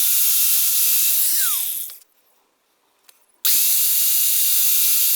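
A small high-speed power cutting tool grinding a slot into the soft metal of a broken bolt, run in two bursts. The first cuts off about two seconds in with a falling whine as it spins down; the second starts about a second and a half later.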